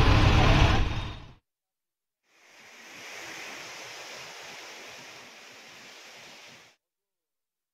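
Tractor-mounted backhoe's diesel engine running at a drain-clearing site, breaking off about a second in. After a short gap, a faint even hiss follows for about four seconds.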